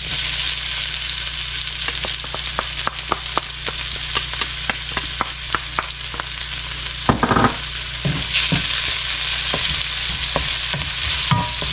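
Chopped garlic sizzling and crackling in hot oil in a wok, a steady hiss full of fast pops. A wooden spatula stirs and scrapes it a few times in the second half.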